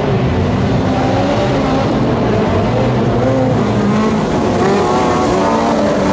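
Several autocross cars racing through a dirt-track corner together, their engines revving at different pitches that rise and fall over one another.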